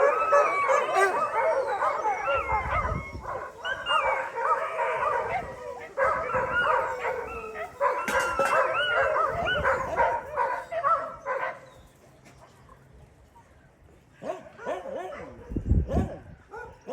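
A large pack of dogs howling together after a thunderstorm, many rising and falling howls overlapping in a chorus with a few barks mixed in. The chorus dies away about twelve seconds in, leaving a few scattered dog calls near the end.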